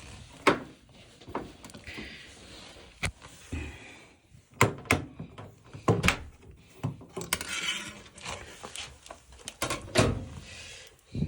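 Irregular knocks, clunks and light rattles of things being handled at a washing machine, with a few short stretches of hiss in between.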